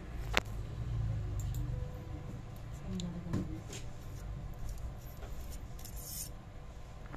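A stainless-steel laparoscopic port closure needle being handled: a sharp metal click about half a second in, then fainter ticks and rubbing of the metal, with a brief rustle near the end.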